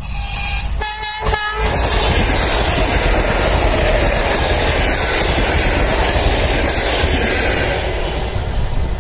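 ED4M electric multiple unit sounding two short horn blasts about a second in, then passing close by with the steady noise of its wheels on the track, easing slightly near the end.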